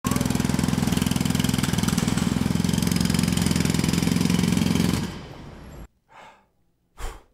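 Loud, rapid hammering of a jackhammer that fades out after about five seconds, followed by two short bursts of noise near the end.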